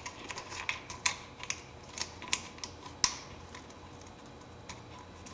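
Irregular light clicks and taps of a screwdriver and small metal parts, several in the first three seconds and only a few after, as a screw is driven to fasten a piece back onto a mower's recoil starter.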